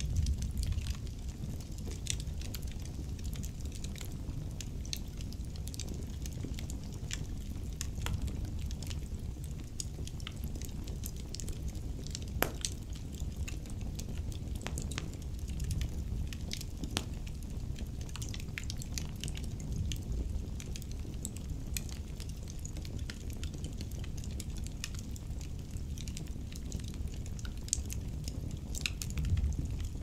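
Wood logs burning in an open fireplace: a steady low rumble of flames with irregular crackles and small pops throughout, one sharper pop about twelve seconds in.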